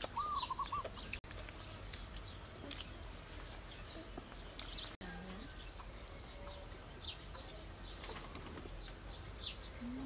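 Small birds chirping now and then over quiet outdoor ambience, with a short wavering call in the first second.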